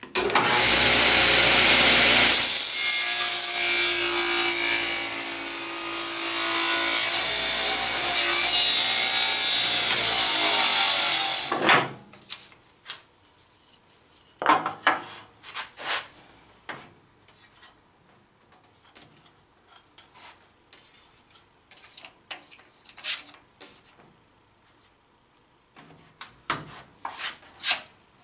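Table saw running and ripping a glued-up wooden block along the fence, a loud steady cut that stops abruptly about 12 seconds in. Then scattered light knocks as the wooden block is handled and set down on the saw table.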